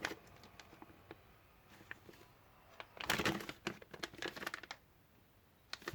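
Plastic parts bags crinkling and rustling as they are handled, with a few faint clicks at first and a louder spell of rustling about three seconds in.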